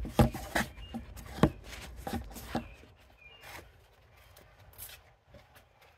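Handling noise on a phone's microphone: irregular knocks and rubbing over the first few seconds, fading out about three seconds in. After that a few faint, short high chirps are heard.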